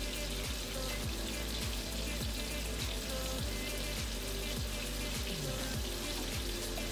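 Background music with a repeating low pattern, over the steady sizzle of pork chops frying in sauce in a pan.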